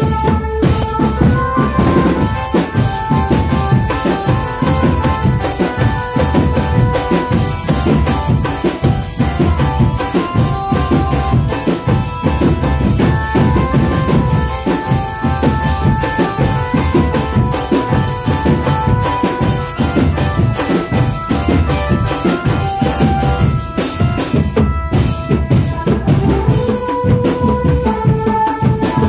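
Drumband music: fast, continuous drumming on bass and snare drums with a melody played over it.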